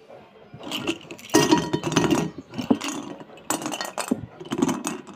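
Slate pencils clinking and clattering against one another and the pan as a hand stirs and lifts them, in repeated bursts of sharp clicks that start just under a second in.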